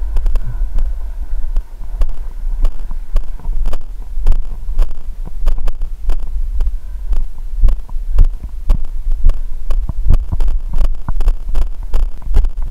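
Steady thumps of a runner's footfalls jolting a body-worn camera, about three a second, over a steady low rumble of wind on the microphone.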